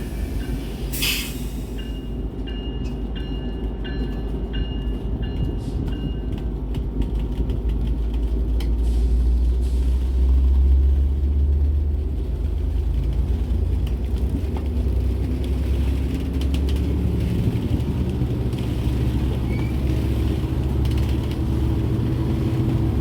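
A train rumbles past with a steady low rumble that grows louder about ten seconds in. A few short, high ringing tones repeat in the first few seconds.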